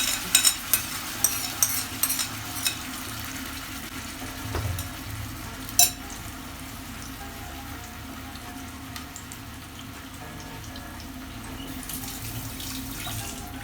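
Wet ginger, garlic, onion and tomato paste frying in hot ghee in a pan: a steady sizzle, with a few sharp knocks in the first three seconds and one more about six seconds in.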